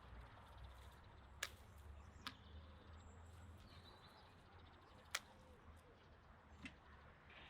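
Near silence: quiet outdoor ambience with faint bird chirps and four sharp clicks, the loudest about a second and a half in and about five seconds in.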